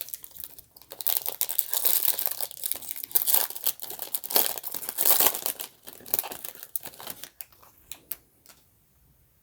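A trading-card pack wrapper being torn open and crinkled by hand: dense crackling from about a second in until about six seconds, then a few scattered crinkles and clicks that die away near the end.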